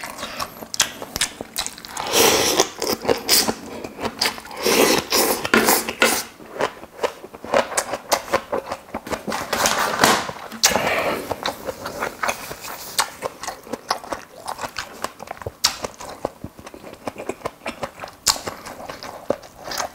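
Close-miked eating sounds: chewing and slurping soybean sprouts from a seafood soup, with many small wet clicks. There are a few louder noisy stretches about two, five and ten seconds in.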